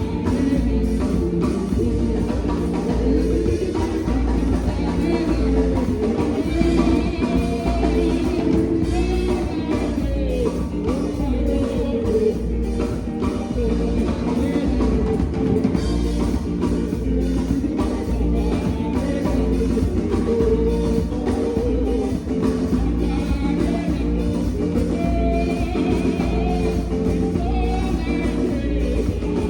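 Rock song playing: drum kit and guitar with a singing voice, at a steady beat.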